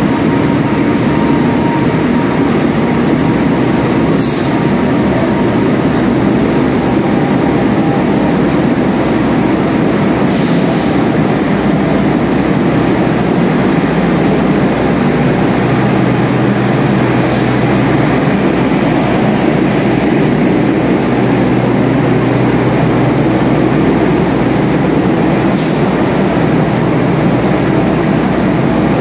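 Passenger train carriages rolling slowly along the platform track, a steady heavy rumble with a low hum beneath it. Brief high-pitched sounds cut through it about every seven seconds.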